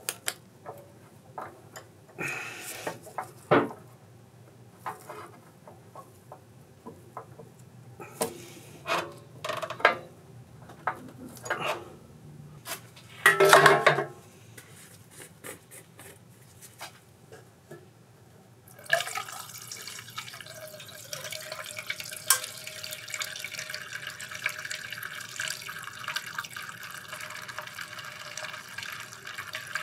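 Small hard parts clicking and knocking as they are handled, with a louder clatter about 13 seconds in. About 19 seconds in, a steady stream of liquid starts running and keeps going.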